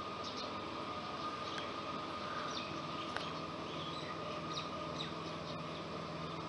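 Birds chirping now and then in short high calls over a steady background hiss.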